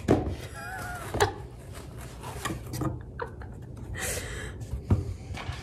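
Handling of cardboard and foam packaging as a large glass candle jar is unboxed: a few sharp knocks and taps, and a short scraping rustle about four seconds in as the jar comes out of its box. A brief high squeak sounds about half a second in.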